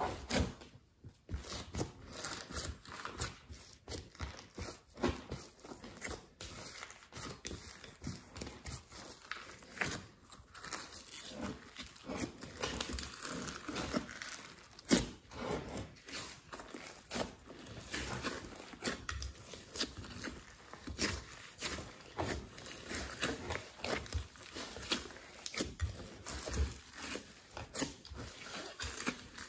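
Hands kneading and squeezing a large mass of glossy slime, making dense, irregular crackles and pops, with one louder pop about halfway through.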